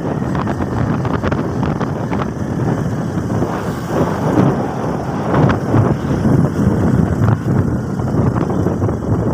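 Wind buffeting the microphone on a moving motorcycle, with the motorcycle running underneath; a loud, unsteady rush.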